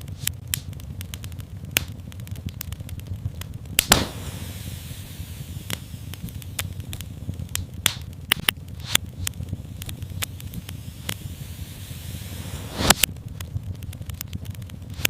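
Fireplace fire crackling, with irregular sharp pops over a low rumble. A soft steady hiss rises about four seconds in and fades near the end, bracketed by two louder pops.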